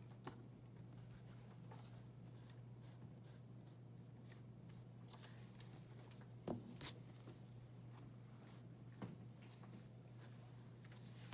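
Faint scratching strokes of a drawing tool on paper as a figure's leg outline is sketched, with a few louder taps partway through, over a steady low room hum.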